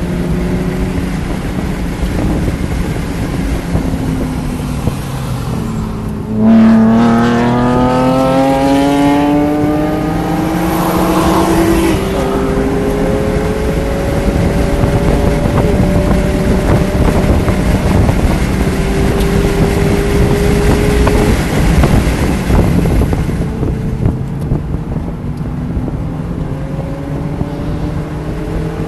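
A stock 2019 Mazda Miata's 2.0-litre four-cylinder engine, heard from inside the cabin at track pace over road and wind noise. The revs ease down for the first few seconds. About six seconds in the engine goes loud and its pitch climbs hard under acceleration. The pitch drops back at upshifts about twelve and twenty-one seconds in, then climbs again after each one.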